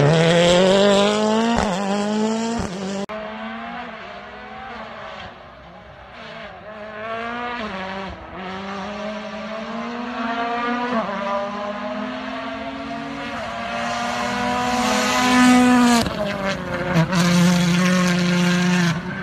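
Rally car engines at full throttle, the pitch climbing and dropping back with each gear change as the cars accelerate along the stage. There are two sharp cracks in the first three seconds, with some tyre squeal as a car turns through a hairpin.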